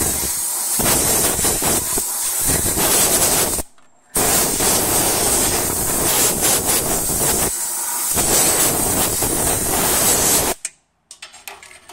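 Compressed-air blow gun blasting dirt away from around the transmission filter housing, a loud steady hiss in two long blasts. The first stops about four seconds in and the second starts again almost at once and cuts off near the end.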